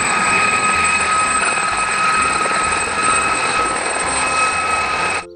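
Gazelle helicopter flying low past, with a steady high-pitched turbine whine over the rushing noise of its rotors. The sound cuts off suddenly near the end.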